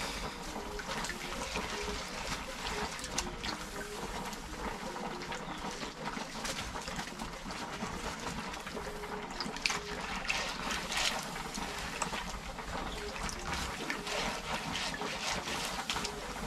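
Hands rubbing soaked seeds in a plastic basin of water to loosen and wash off their husks. Handfuls are lifted and dropped back with soft splashes and trickles, a few sharper splashes coming in the second half.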